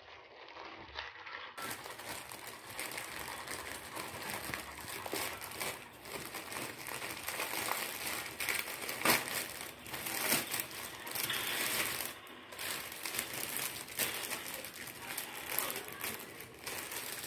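Crinkling and rustling of a thin plastic courier mailer being handled and opened, with the crackle of the shirt's clear plastic packaging as it is drawn out near the end.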